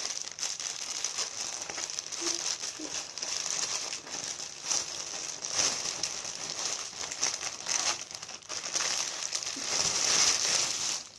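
Parcel packaging crinkling and rustling in the hands as it is unwrapped, in uneven handfuls with the loudest crinkle near the end.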